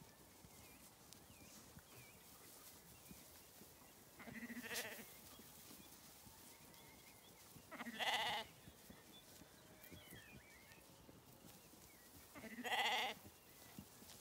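Zwartbles lambs bleating: three separate bleats about four seconds apart, each lasting under a second.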